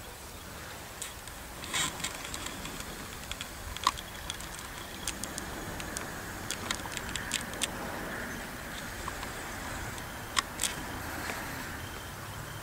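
Steady background hiss with a scatter of sharp clicks and ticks. They come singly and in quick runs, the loudest about four seconds in and a close pair about ten seconds in.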